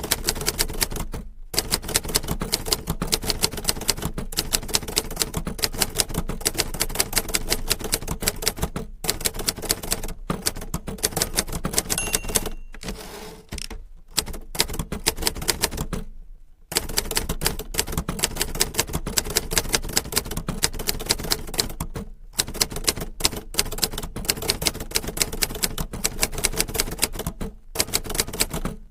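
Typewriter keys striking in fast, steady runs of typing, broken by several brief pauses of about half a second.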